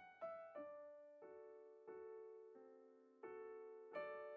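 Quiet background piano music: soft notes and chords struck about every half to one second, each fading away.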